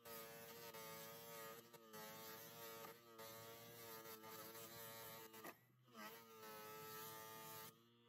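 Small electric motor spinning a wire wheel brush, a faint buzz with a scratchy hiss as a steel compass leg is held against the bristles. The pitch wavers and dips as the leg presses on the wheel, with a few short breaks, the longest about three-quarters of the way through.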